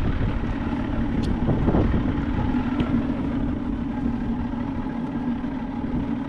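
A steady engine hum: one constant low drone over a rumbling background, unchanging throughout.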